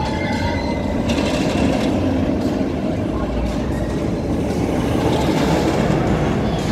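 Steady rumbling roar of a steel roller coaster train running along its track, swelling about a second in and again near the end.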